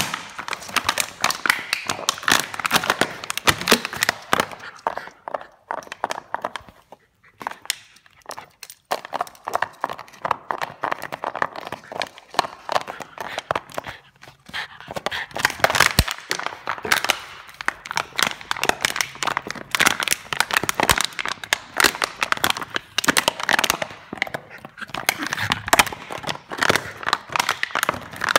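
Plastic Coke bottle crinkling and crackling as a dog chews and bats at it, in dense runs of sharp clicks with short lulls about six to nine seconds in and again around fourteen seconds.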